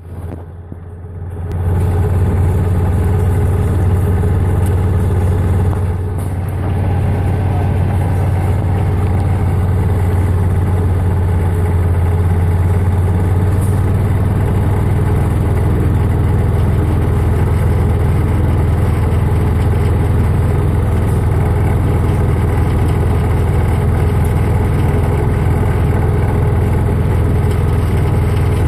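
Gas golf cart's small engine running at a steady speed as the cart drives along, a constant low hum. It is quieter for the first couple of seconds, then settles to an even level.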